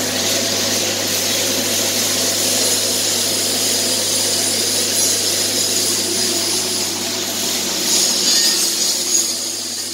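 Steady workshop power-tool noise: a continuous hiss with a low hum underneath, getting a little louder near the end.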